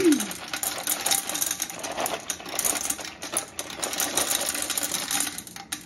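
Tiny gumballs poured from a cardboard carton into a glass gumball-machine globe: a fast, continuous clatter of hard gumballs striking the glass and each other. It stops just before the end.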